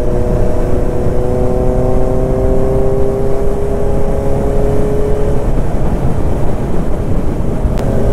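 Superbike engine pulling at highway speed, its pitch climbing slowly for about five seconds before it drops away, under a steady rush of wind noise.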